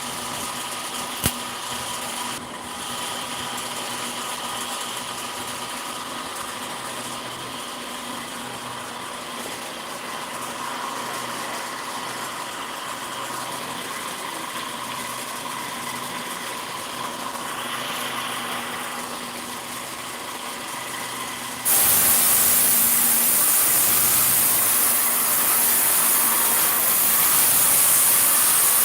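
A steady machine hum with a few constant tones, with one sharp click about a second in. About two-thirds of the way through, a much louder, steady hiss starts suddenly and holds.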